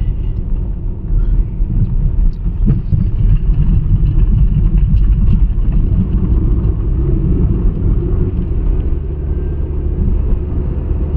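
Steady low rumble of road and engine noise inside a Honda City's cabin while driving.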